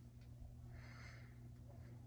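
Westinghouse Art Metro ceiling fan motor with a bad capacitor, humming low and steady. A soft whoosh comes about halfway through.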